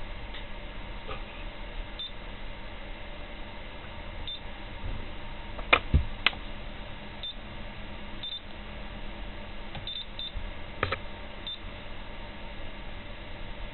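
Short, high beeps from a Hobbyking T682 Eco Touch charger's touchscreen as its menu buttons are pressed, about eight spread over the stretch. A few louder sharp clicks or knocks, the loudest about six seconds in, over a steady hiss.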